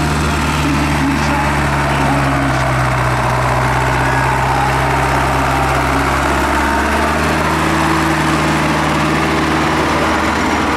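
Tractor engines running steadily at a loud level, their hum held at even pitch; about two-thirds of the way through, one engine note drops out and a higher one takes its place.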